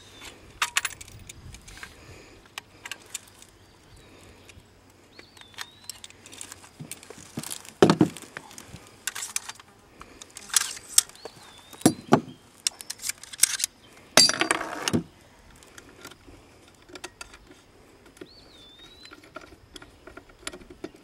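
Metal parts of an AR-style rifle clicking and rattling as it is taken apart by hand, with a few louder sharp clacks.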